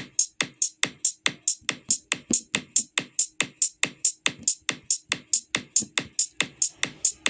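Electronic music played on synthesizers: an even, fast pattern of short sharp percussive hits, about four to five a second, over a faint steady low tone.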